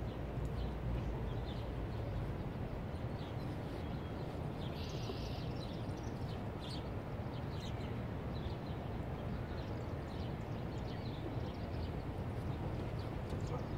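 Outdoor background noise: a steady low rumble with scattered faint, short high chirps.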